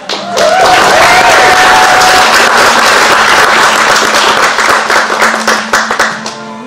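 Audience applause that breaks out suddenly, holds loud for about six seconds and then dies away.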